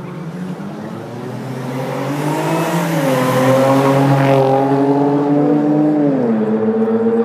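A motor vehicle's engine accelerating: its note climbs and grows louder, holds steady, then drops sharply about six seconds in, as at a gear change.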